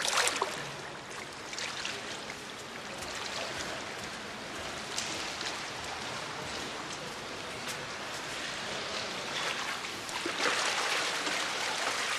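Swimming-pool water splashing and rushing, steady with a few small splashes, louder for a moment about ten seconds in.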